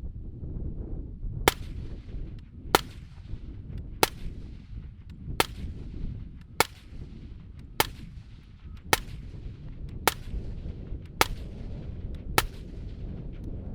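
Ten suppressed rifle shots from a 10.5-inch LMT 5.56 AR fitted with a Dead Air Nomad 30 suppressor, fired at an even pace of about one every 1.2 seconds.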